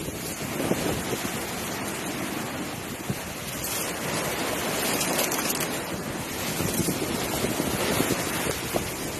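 Sea washing along the hull of a sailing ship under way, with wind gusting on the microphone: a steady rushing noise.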